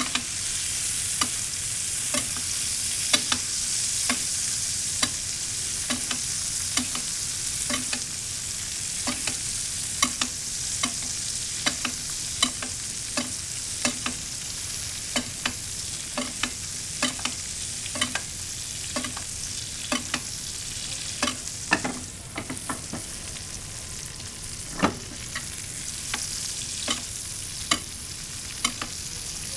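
Two New York strip steaks sizzling in garlic butter in a stainless-steel skillet. A metal spoon clinks against the pan over and over as the butter is basted over the steaks.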